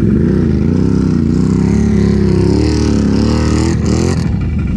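Can-Am ATV engine running close by, its pitch wavering slowly up and down as the throttle is worked, with a brief hiss about four seconds in.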